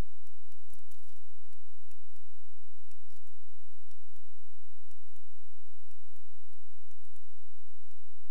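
Computer mouse clicking at an irregular pace, at times several clicks a second, over a steady low hum.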